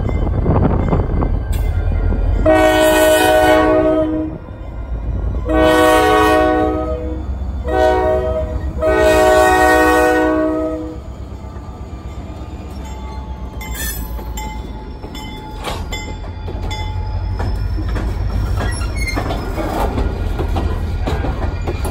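EMD SD40-2W diesel locomotive sounding its air horn in the grade-crossing pattern, two long blasts, a short one and a long one, over the low rumble of its 16-cylinder two-stroke engine as it passes close by. After the horn the freight cars roll by with wheel squeal and a few clanks.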